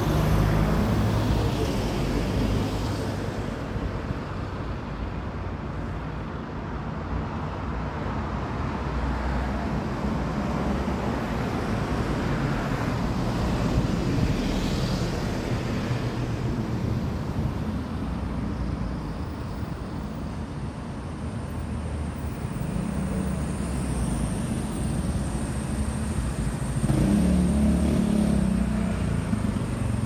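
Street traffic: a steady rumble of passing cars that swells as vehicles go by, loudest near the end when an engine passes close.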